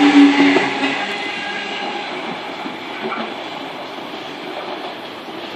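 Sydney Trains Tangara double-deck electric train pulling out of the platform: a steady electric hum for about the first second, then the rumble of its wheels on the rails slowly fading as it leaves.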